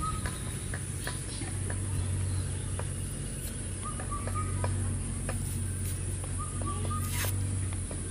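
Outdoor ambience: a bird gives a short call, twice, a few seconds apart, over a steady low hum, with a few faint clicks.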